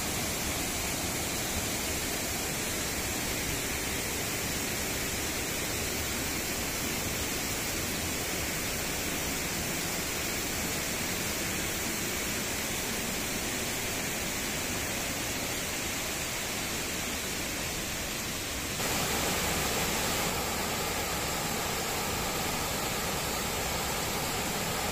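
Waterfall water rushing steadily. About three-quarters of the way through, the sound changes abruptly and becomes slightly louder.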